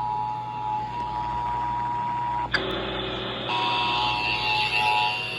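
Emergency Alert System attention signal: the steady two-tone alarm of 853 Hz and 960 Hz sounding together from a broadcast. About two and a half seconds in it breaks off with a sharp click and comes back about a second later with added hiss and a higher tone.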